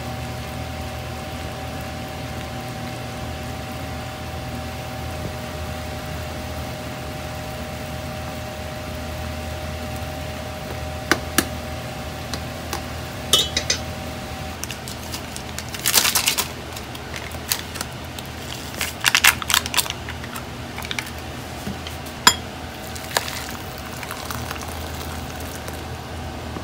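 A steady two-tone hum from an induction cooktop heating a pot of boiling noodles, which stops about halfway. Then a run of sharp clinks and clatters of the pot, chopsticks and a ceramic bowl.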